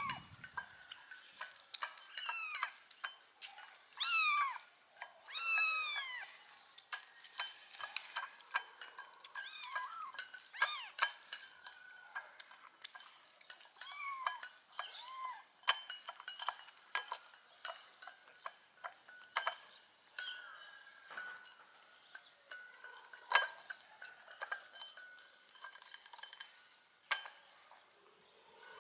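Young kittens mewing: thin, high cries that fall in pitch, several in the first six seconds and a few fainter ones later. Under them run many small wet clicks of kittens lapping milk from a saucer.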